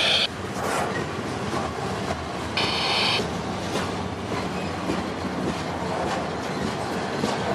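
Slow freight train of loaded trash cars rolling by, wheels clicking over rail joints, with a short high-pitched wheel squeal about three seconds in.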